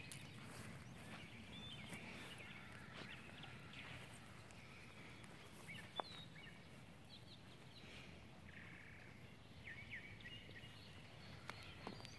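Faint birdsong: many short chirps and whistles from several birds, over a quiet outdoor background, with a single sharp click about six seconds in.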